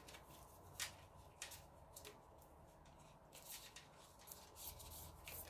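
Faint, scattered soft clicks and rustles of an oracle card deck being cut and handled.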